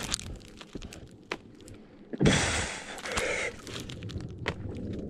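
Small scattered clicks and scrapes of gloves on bark and boots in snow. About two seconds in, a hard, breathy grunt of effort lasting about a second, falling in pitch, as a man shoves against the tree trunk.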